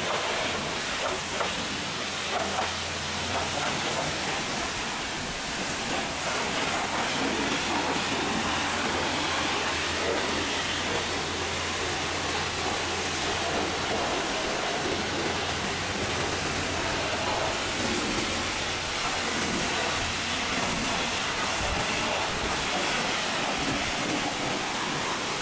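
A pressure-washer lance fires a high-pressure jet of water against the painted panels and wheel of a truck cab, making a continuous hiss of spray. A low hum runs beneath it for about the first half.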